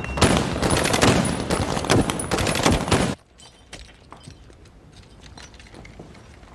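Heavy rifle gunfire: many rapid shots overlapping in a dense volley that cuts off abruptly about three seconds in, leaving only faint scattered knocks and pops.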